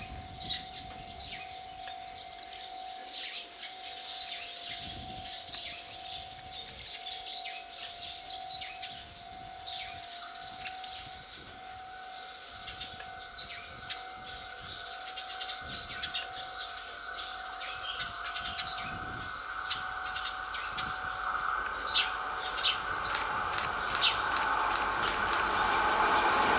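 Birds chirping with short, sharp calls repeated throughout, over a steady tone that stops about three-quarters of the way in. Over the last third the sound of a diesel locomotive-hauled train approaching grows steadily louder.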